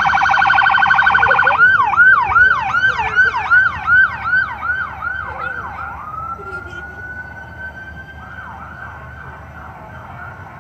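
Fire truck siren warbling very rapidly, then switching about a second and a half in to a slower pattern of repeated swoops, about two a second. Around the middle it rises in one long wail before faint swoops resume, and it grows quieter toward the end.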